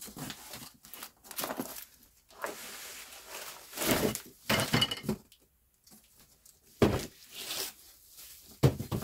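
Cardboard box being opened and handled, with plastic-wrapped metal stool parts sliding out onto a table: rustling, scraping and clinking broken by several sharp knocks, the loudest about four seconds in and again near the end.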